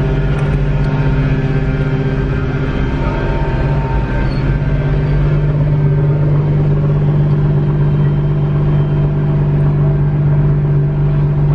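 A car engine idling, a loud, steady low drone that holds at one pitch.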